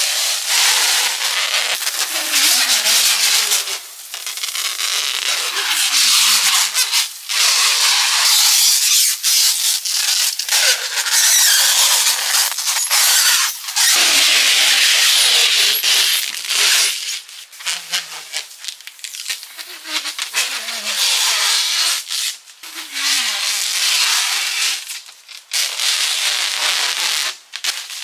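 Rubbing and crinkling noise from hand work on building materials, in stretches of a few seconds broken by brief pauses, with short squeals that slide down in pitch.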